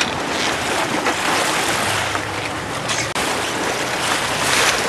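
Steady rush of sea water and wind around a sportfishing boat, with a faint low hum of the boat's engine and a couple of brief louder washes of water near the middle and the end.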